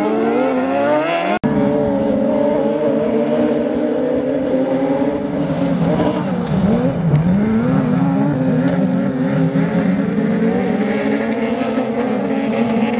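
Off-road racing car engines at high revs. The pitch climbs, then breaks off abruptly a little over a second in, then runs high and steady with one short drop and climb in revs near the middle.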